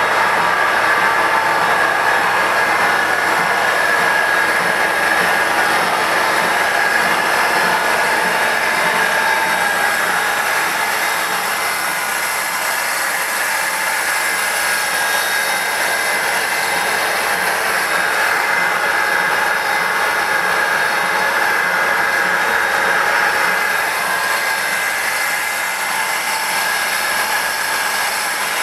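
Electric starter motor turning the rotor of a J34 turbojet cutaway model: a steady mechanical whir with a few held whining tones, easing slightly near the end.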